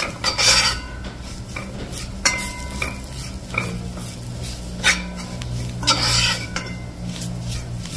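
Long metal ladle scraping and clinking against the sides and bottom of a metal pot as duck in thick curry masala is stirred, in irregular strokes with a few louder scrapes. A steady low hum runs underneath.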